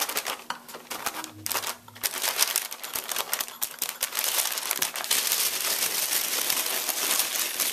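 Brown masking paper along a baseboard being cut free with a five-way tool, then pulled up and crumpled by hand. There are scattered scrapes and ticks at first, then dense, steady paper crackling and tearing from about two seconds in.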